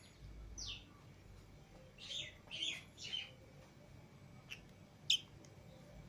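Pet lovebirds chirping: one falling chirp, then three quick chirps close together about two seconds in, and a couple of short sharp chirps near the end.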